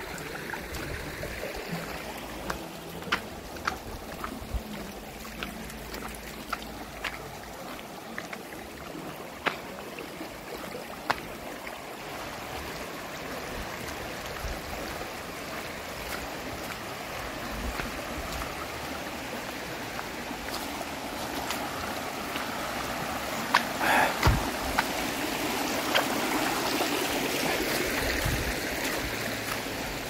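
A shallow canyon creek running over rocks: a steady rush of water that grows louder over the second half, with scattered sharp clicks and knocks.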